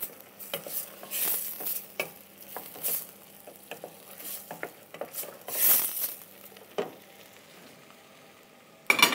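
A wooden spoon stirring tomatoes, mirepoix and tomato paste frying lightly in a stainless steel pot, with irregular scraping swishes and sizzling. The stirring stops about seven seconds in, and a sharp knock comes near the end.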